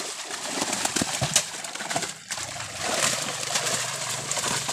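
Water splashing and sloshing as fish thrash in a seine net and are handled by hand, with many short slaps. A low steady hum comes in about halfway through.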